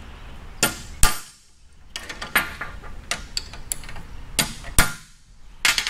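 Small hammer tapping a punch against a car's accelerator-pedal bracket to mark hole positions for drilling. About six sharp metallic taps with light clinks between them; two taps, about a second in and near the end, are the loudest.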